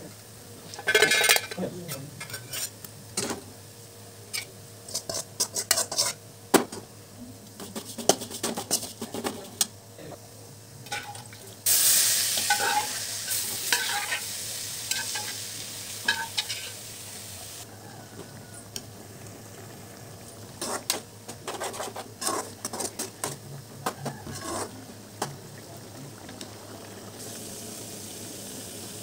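A metal spatula scraping and stirring in a metal wok of fried shallots, curry leaves and dried chillies, in irregular scrapes and knocks. About twelve seconds in, a loud sizzle starts suddenly and dies down over several seconds. Later come more scraping strokes, then a softer steady sizzle.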